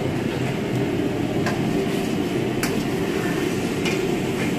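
Steady roar of a commercial kitchen wok station, its burner and extraction running. A few sharp clinks of a metal ladle against the wok come through it.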